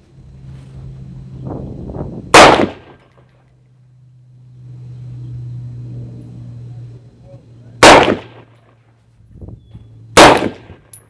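Three single shots from an AR-15 rifle, very loud and sharp. The first two are about five and a half seconds apart, and the third comes about two seconds after the second. A steady low hum runs underneath.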